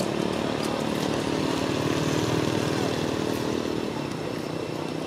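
Small engine running with a steady hum and fast pulsing, strongest at the start and easing off slowly.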